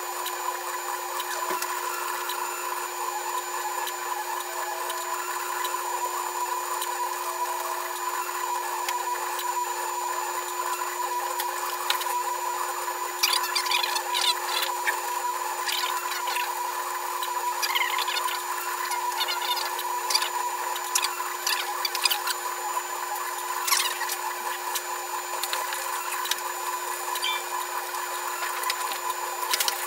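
UP Plus 2 3D printer running a print: its stepper motors make a steady whine, with scattered ticks and chirps as the print head moves.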